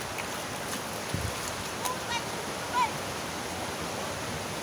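Steady rushing of muddy floodwater running across a street, mixed with falling rain.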